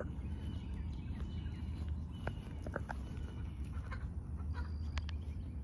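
Chickens, a young rooster with his hens, giving a few short clucks, scattered over the middle of the clip, above a steady low rumble.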